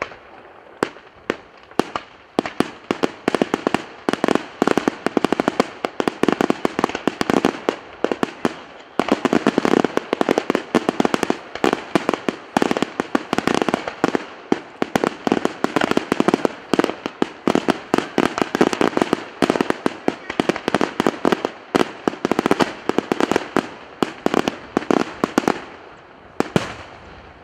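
Daytime aerial fireworks: a dense, rapid run of sharp bangs and cracks from exploding shells, several a second, stopping about a second before the end.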